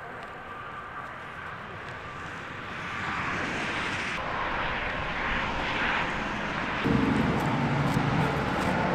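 Engine noise: a rushing drone swells about three seconds in, and a louder low, steady hum joins it near the end.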